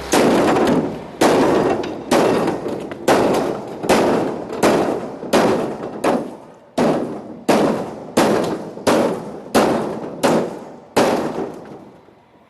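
Hammer striking a transparent polycarbonate kayak hull again and again in an impact test of its strength: about fifteen hard blows, roughly one every 0.7 seconds, each with a short ringing decay.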